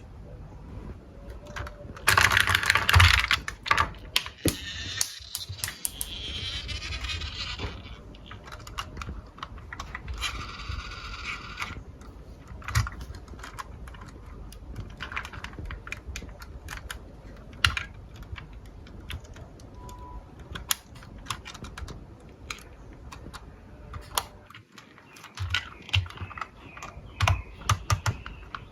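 Marbles rolling and clacking down a wooden marble run: many small, irregular sharp clicks, densest and loudest about two to four seconds in, with stretches of rolling rumble between them.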